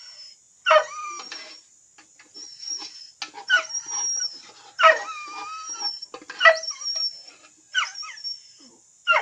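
Dogs whining while begging for food, high-pitched whines that fall in pitch and come every second or so.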